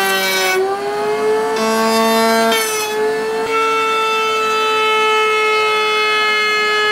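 Router table spinning a half-inch round-over bit, a steady high whine as a wooden paddle shaft is fed past the bit; the pitch sags briefly about half a second in as the cutter takes load, then recovers.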